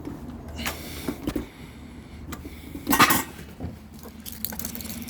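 Clicks and knocks of the kerosene heater's metal controls and housing being worked by hand, with a louder clunk about three seconds in.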